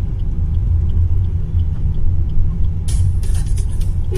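Maruti Suzuki S-Cross driving at speed, heard from inside the cabin: a steady low rumble of engine and road noise. About three seconds in, a hiss with quick crackles joins it.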